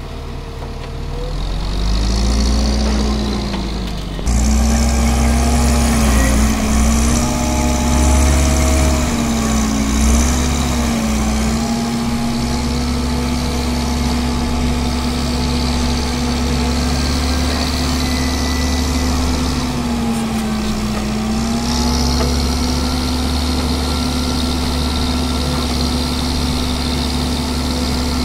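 Diesel engine of an Ajax Argo 4500 self-loading concrete mixer running steadily with a deep rumble. Its pitch sags briefly and recovers a few times under load as the hydraulic loading bucket is worked, and it gets louder about four seconds in.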